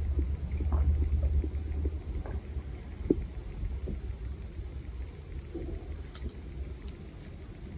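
A low rumble, loudest in the first two seconds and then easing off, with faint scattered clicks and short chirps over it.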